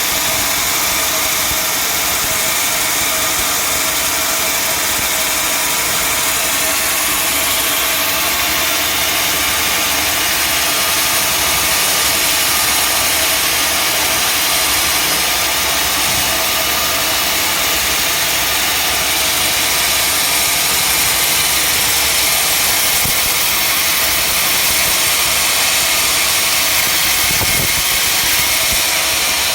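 Sawmill machinery running steadily: a constant engine-like drone with a bright hiss on top, with no breaks.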